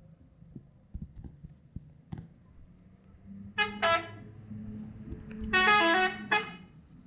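Telolet horn of a Hartono Trans bus: two short blasts in quick succession, then about a second and a half later a longer, louder run of quickly changing notes, the telolet tune.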